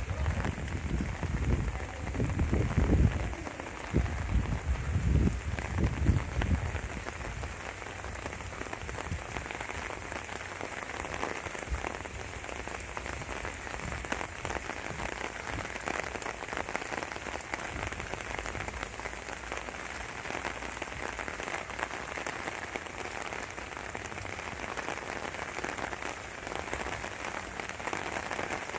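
Rain from an approaching typhoon falling steadily. Gusts of wind buffet the microphone for the first several seconds.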